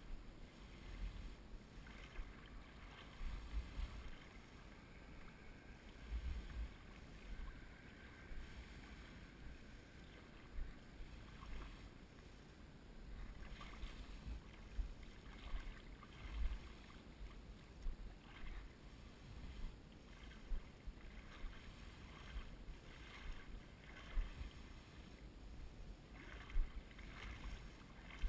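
Quiet water sloshing and splashing at irregular intervals as an angler wades through shallow bay water, with a low wind rumble on the microphone.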